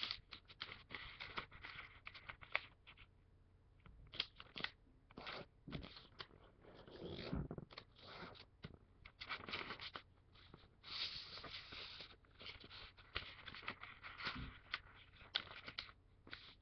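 A sheet of paper being folded by hand: irregular rustling and crinkling as the paper is lifted, pressed flat and smoothed along a crease, with short crackles between quieter pauses.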